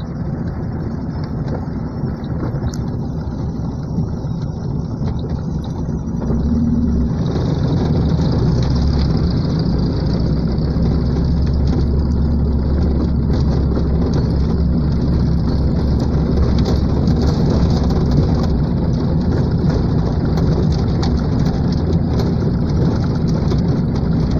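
Car driving on a dirt road, heard from inside the cabin: a steady engine and tyre rumble that grows louder about seven seconds in.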